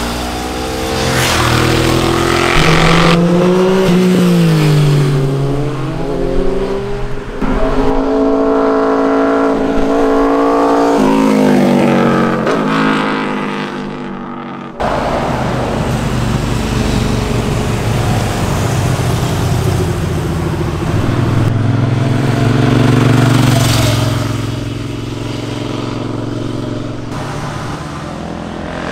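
Motorcycle engines passing at speed, revving up and dropping back through gear changes, one bike after another. The sound changes abruptly about halfway through.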